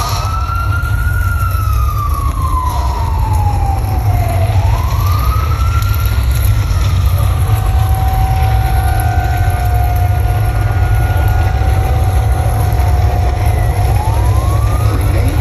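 Wailing siren sound effect played through a concert sound system, sweeping up and down twice, then holding one steady note for several seconds before rising again near the end, over a constant deep bass rumble.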